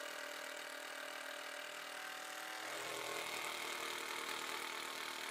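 Cordless impact driver's motor whirring steadily as it drives wood screws through plywood into timber blocks, heard faintly, with its tone filling out a little about halfway through.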